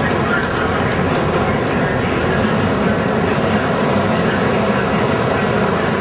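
Steady, loud city street noise: an unbroken rumble of passing vehicles.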